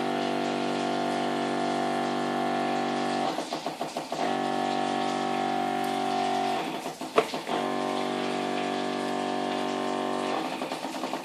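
A steady pitched hum, like a motor or pump running, in three stretches of about three seconds each, broken twice by short spells of rapid fluttering.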